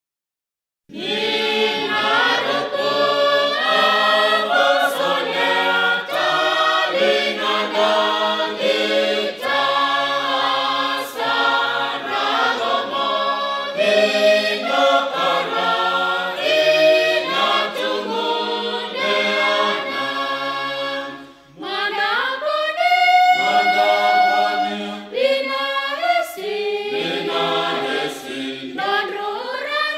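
A mixed choir singing a gospel hymn unaccompanied in the Roviana language, several voices together in harmony. The singing starts about a second in and breaks off briefly between phrases about two-thirds of the way through.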